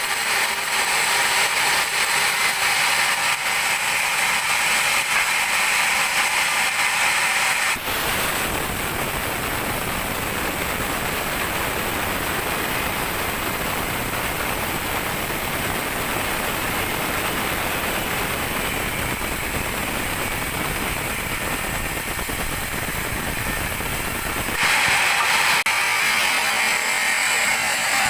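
Sawmill bandsaw running through a teak log, a steady loud mechanical hiss and whir. About eight seconds in the sound changes abruptly to a fuller, lower noise, and near the end it switches back to the thinner, higher sound.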